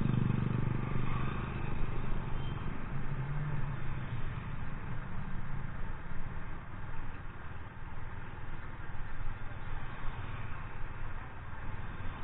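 Motorcycle engine running steadily, a low rumble with a wavering level.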